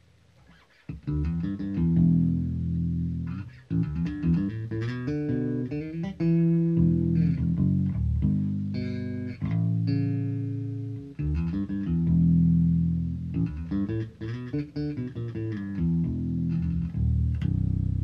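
Electric bass guitar played through the Efremoff HomeBox-110, a 100 W hybrid bass combo with one 10-inch speaker and a tweeter, heard through the camera's own microphone in a small room. A steady run of plucked notes starts about a second in.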